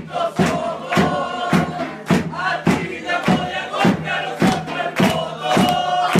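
A crowd chanting in rhythm over a sharp, regular beat about twice a second.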